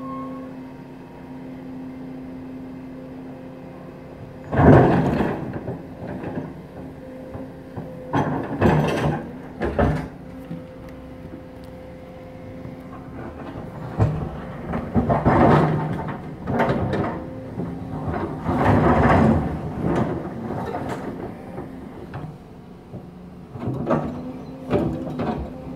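Excavator engine running steadily, with about five loud crunching crashes spread through, each lasting a second or so: brick and rubble being broken and dropped in a demolition.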